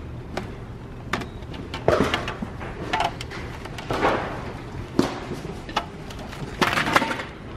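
Clear plastic serving platter and lid being handled: crackling plastic and a string of sharp clicks and knocks, about one a second, over a steady low hum.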